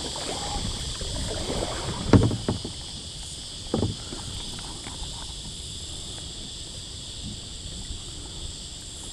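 Steady high-pitched buzzing of insects, with two knocks on the kayak, a loud one about two seconds in and a smaller one near four seconds.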